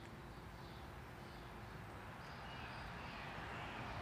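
Faint outdoor background: a steady hiss with faint, short, high chirps, growing a little louder over the second half.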